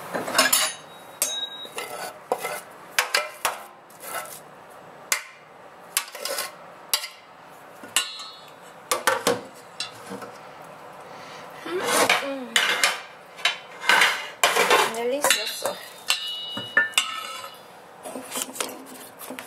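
A metal spoon scraping and knocking against a stainless-steel pan as cooked cassava dough is scraped out of it: a rapid, uneven run of clinks, taps and scrapes, some of the scrapes squeaking with a sliding pitch. A short metallic ringing comes about three-quarters of the way through.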